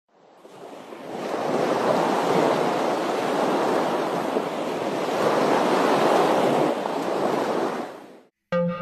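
A dense mass of fish splashing and churning at the water surface, heard as a steady wash of splashing. It fades in over the first second or so and fades out just before the end.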